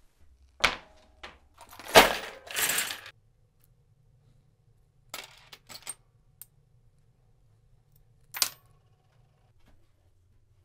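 Loose small metal parts, such as bearings, bolts and washers, clinking and clattering in a plastic bin as hands rummage through them. A burst of loud clatter comes in the first few seconds, the loudest about two seconds in, followed by a few scattered single clinks.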